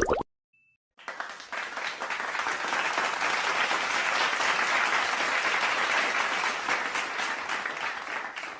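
Crowd applauding: dense clapping fades in about a second in, is fullest midway, and dies away near the end.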